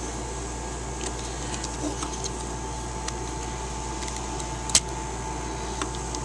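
Faint clicks of a plastic action figure's parts being handled, with one sharper plastic click nearly five seconds in as a motor accessory is fitted onto its arm, over a steady background hum.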